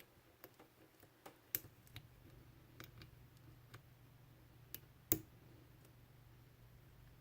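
Lock picks clicking against the pins and warding inside a Cisa padlock's keyway during picking: scattered small, sharp metallic clicks at irregular intervals, the sharpest about five seconds in, over a faint low hum.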